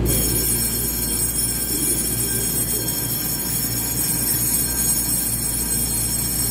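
A steady high-pitched ringing starts abruptly and keeps going, over the low steady hum of an EMU3000 electric train standing at an underground platform.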